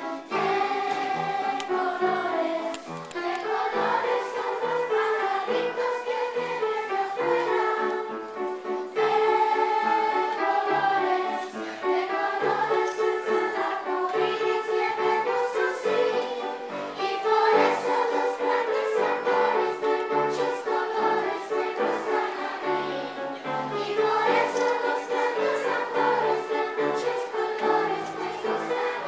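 A group of children singing a song together, with instrumental accompaniment carrying a steady bass line.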